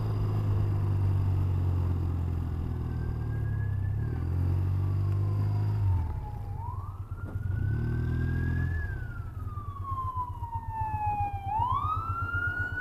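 A 1993 BMW R100R's air-cooled boxer twin running under way, its note changing between about six and nine seconds in. Over it a wailing siren sweeps slowly up and down, getting louder over the last few seconds.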